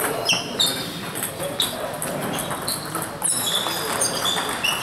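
Table tennis balls clicking off bats and pinging on table tops, an irregular run of sharp pocks from more than one table at once.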